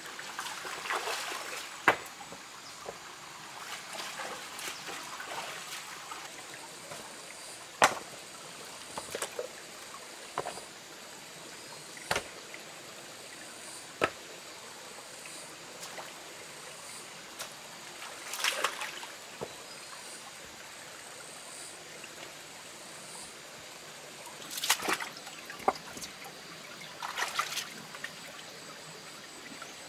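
Shallow stream trickling steadily over rocks, with sharp knocks of wet stones being set against one another and a few short splashes as hands and feet move in the water.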